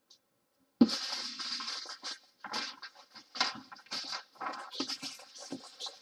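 Small plastic bags of diamond painting drills rustling and crinkling as they are picked up and sorted by hand, in irregular bursts that start suddenly about a second in.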